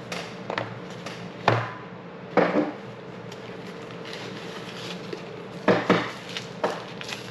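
Unboxing handling noise: boxes and packaging being picked up and set down, with several light knocks and clatters, the loudest about a second and a half, two and a half and six seconds in.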